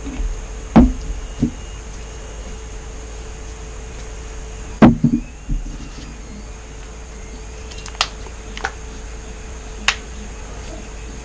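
A few scattered knocks and clicks from paint cups and bottles being handled and set down during acrylic paint pouring. The loudest comes near the middle, and they sit over a steady low hum.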